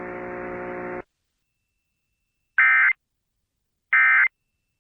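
Two short buzzing Emergency Alert System end-of-message data bursts, the digital 'NNNN' code sent as two-tone modem audio, about a second apart, marking the end of the alert. Before them, a steady hum left over from the message audio cuts off about a second in.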